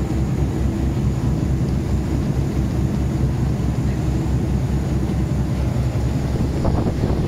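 Boat engine running steadily at cruising speed, a low, even throb, with water rushing in the churning wake behind the stern.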